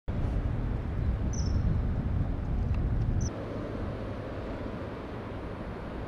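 Shallow river water running, under a low rumble that drops away abruptly a little past halfway. Two short high-pitched bird chirps, the second just before the rumble drops.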